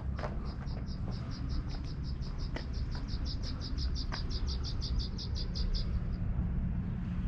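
A rapid, even series of high chirps, about five a second, that grows a little louder and then stops about six seconds in, over a low rumble of wind on the microphone.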